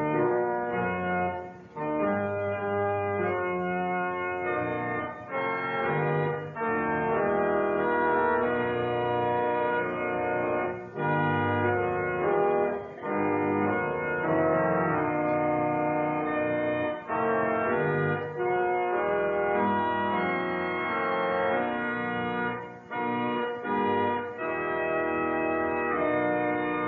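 Church organ playing in full chords, held phrase by phrase with short breaks between them. It is the 1956 organ at Bethlehem Lutheran Church, Adelaide, in a 1996 recording.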